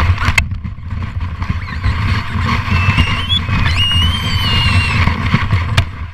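Plastic sled sliding fast over snow, a steady scraping rumble with a couple of sharp knocks from bumps, heard from a camera riding on the sled. A young child lets out a long high squeal of delight, rising then falling, for about two seconds past the middle.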